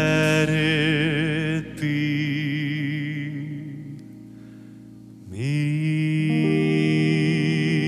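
A deep-voiced male singer holds long notes with slow vibrato in a slow ballad, over a soft instrumental backing. About four seconds in the phrase fades to a brief hush, then he starts another long held note.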